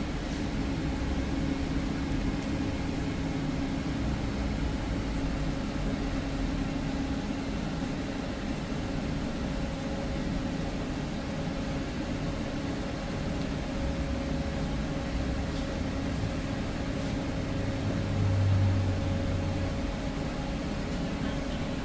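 A steady low mechanical hum with a faint even tone in it, like a motor or fan running. A deeper hum swells briefly near the end.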